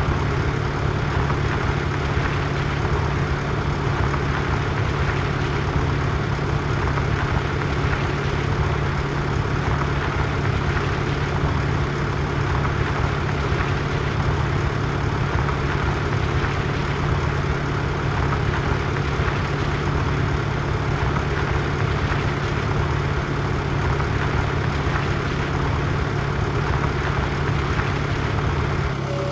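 Tractor engine running steadily with an even, unbroken low drone.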